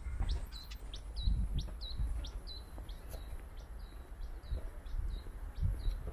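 A single bird repeating a short, sharp chirp about three times a second, over low, irregular thuds.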